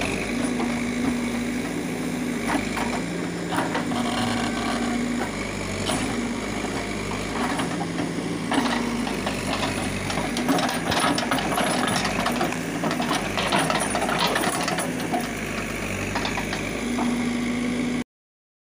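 Caterpillar backhoe loader's diesel engine running under hydraulic load while digging, its pitch dipping and recovering as the arm works. Clanks and scrapes of the steel bucket in soil and roots come and go. The sound cuts off suddenly near the end.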